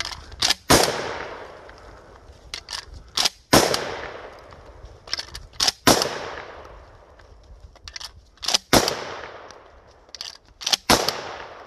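Pump-action shotgun fired five times, about every two to three seconds, each shot followed by a long echoing tail. A sharp clack of the action comes just before each shot.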